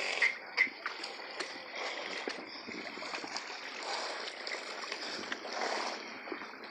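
Floodwater sloshing and splashing as a horse and a man wade through it chest-deep, with a few sharp splashes in the first second, then a steady wash of moving water.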